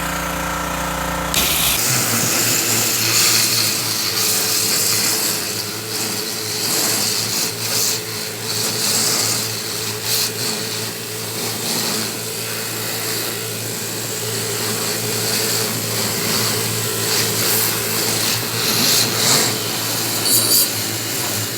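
Pressure washer running steadily, its water jet starting about a second in and hissing as it rinses a freshly cleaned wooden sign.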